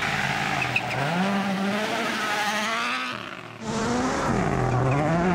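Rally car engine at full throttle, its pitch climbing, then dropping briefly and climbing again through gear changes and lifts.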